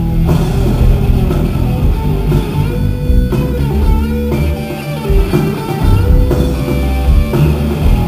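Live rock band playing through the PA at soundcheck: electric guitar holding and bending long notes over bass guitar and drums.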